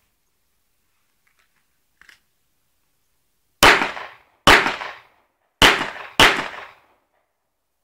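Four shots from a Glock 17 9 mm pistol, unevenly spaced: two about a second apart, then two more, the last pair closer together. Each shot is sharp and loud with a short echoing tail.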